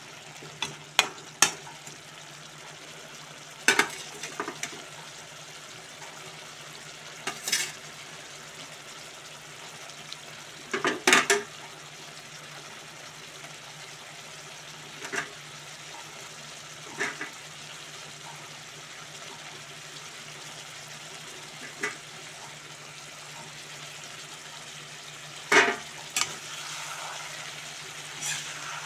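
Chicken curry frying with a steady sizzle in a karahi while a spatula stirs it, scraping and knocking against the pan every few seconds. The loudest clanks come about eleven seconds in and near the end.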